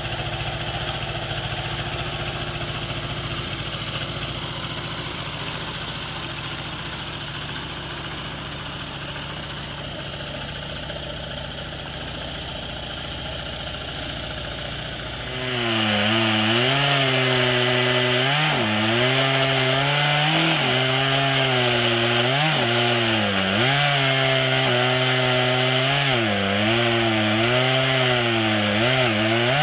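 An engine runs steadily. About halfway through, a chainsaw cuts into a cottonwood log, much louder, its pitch dipping and rising again and again as the chain bogs in the wood and frees up.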